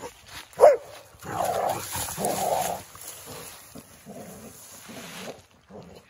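A dog barking and yipping as it plays: one sharp, loud bark about half a second in, then two longer calls over the next two seconds, softer calls after that, stopping shortly before the end.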